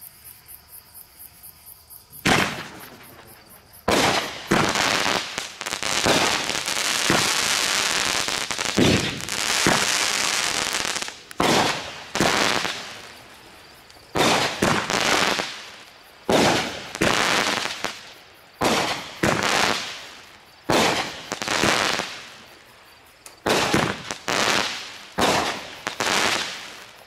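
Pyro's Pride 200-gram 10-shot consumer fireworks cake firing its shots in sequence, starting about two seconds in: sharp bangs that each fade away, with a dense stretch of crackling from about 5 to 11 seconds in and then a bang every second or two. Crickets chirp before the first shot.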